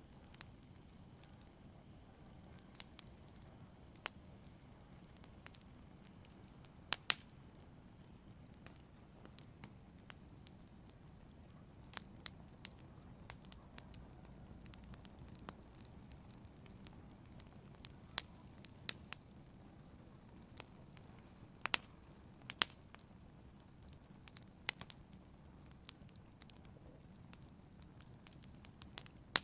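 Fire burning in a fireplace, crackling: irregular sharp pops and snaps over a steady low rush of flame, with a couple of louder pops about seven seconds in and past the twenty-second mark.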